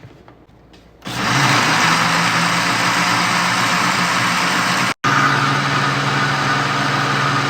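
Electric blender switched on about a second in and running steadily at speed, mixing milk, sugar and cocoa into a chocolate sauce; the sound drops out for an instant about five seconds in.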